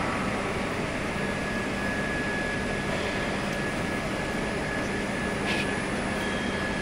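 Inkjet tape-printing and rewinding machine running continuously: a steady mechanical hum with a low drone and a thin high whine that sets in about a second and a half in, and one short click about five and a half seconds in.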